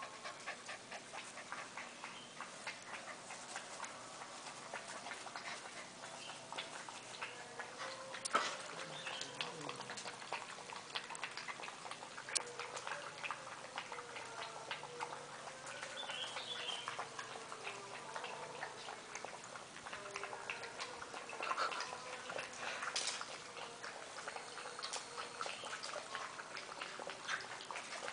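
Golden retriever puppies, about six weeks old, playing and scuffling on grass: a busy run of small rustles, clicks and soft puppy noises, with a few sharper clicks, the sharpest about eight seconds in.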